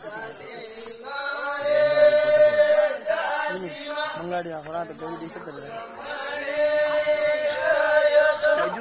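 Rajasthani Gavri folk music: voices chanting a song in long held notes over steady jingling percussion.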